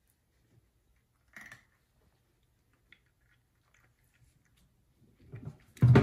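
Savannah cats crunching dry kibble from a plastic food storage bin: faint crunches and clicks, one short burst about a second and a half in. Near the end a much louder burst of noise starts.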